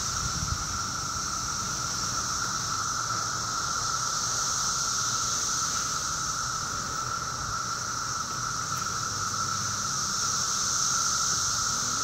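Chorus of male 17-year periodical cicadas singing in mass emergence: a continuous, unbroken drone at two steady pitches, a lower whine and a higher hiss.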